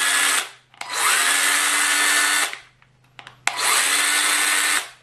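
Parkside 12 V cordless mini chainsaw run with no load in three short bursts: one ending about half a second in, one of about a second and a half, and one near the end. Each starts with the motor winding up in pitch, and a few sharp switch clicks come just before the last burst.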